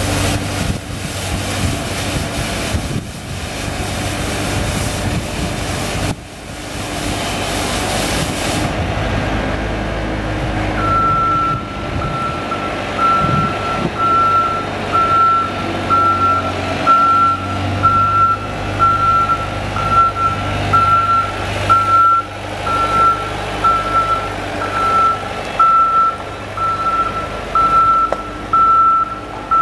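Laymor Sweepmaster 8C sweeper's Cummins diesel engine running, with a hiss that cuts off suddenly about nine seconds in. From about eleven seconds in, its backup alarm beeps steadily about once a second as it reverses.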